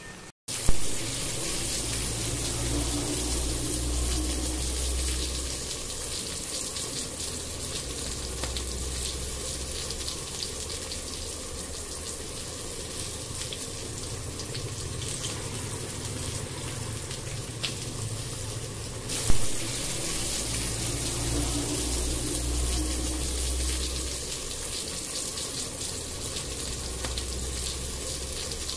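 Curry gravy simmering and bubbling in a nonstick pan on an induction cooktop: a steady watery hiss over the cooktop's constant low hum, with a short knock just after the start and another about two-thirds through.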